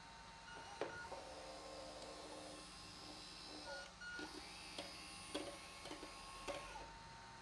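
Small electric tipping motor of an RC-converted Bruder Joskin dump trailer whirring as it raises and lowers the bed, stopping briefly partway and running again, with several sharp clicks.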